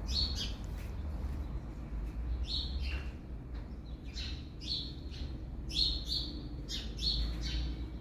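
Small songbirds chirping: short, high chirps come in quick clusters every second or so, over a low steady rumble.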